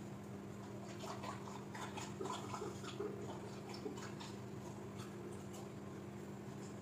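Cooking oil heating in a pot on a gas burner, giving off faint scattered ticks and crackles, most of them in the first half, over a steady low hum.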